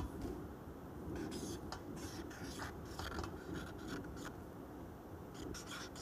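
Marker pen writing on a white board: short, irregular squeaking and scraping strokes, a few each second.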